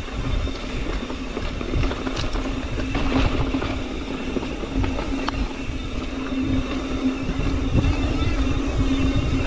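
Industry Nine Hydra rear hub freewheel buzzing steadily while the mountain bike coasts; the buzz fades and comes back a few times as the rider pedals. Under it is a low rumble of wind and knobby tyres on the trail, with a few sharp clicks.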